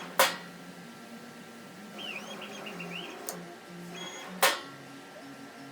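Stepper motors of a Langmuir Systems CNC table driving the gantry, a low whine that steps between pitches as the moves change. Two sharp clicks, one just after the start and one a little past four seconds in, from the 6 V solenoid snapping the Sharpie down or up.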